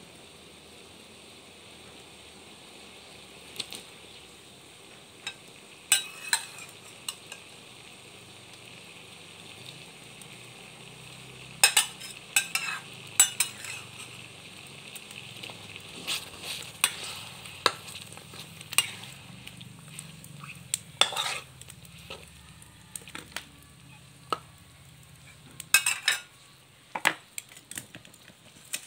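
Panang curry paste and coconut milk sizzling in a wok as it is stirred, with a steady frying hiss. A metal utensil clanks and scrapes against the pan at irregular moments.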